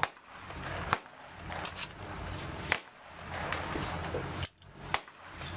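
AR-15 rifle in 5.56×45mm firing single semi-automatic shots, sharp cracks about two seconds apart.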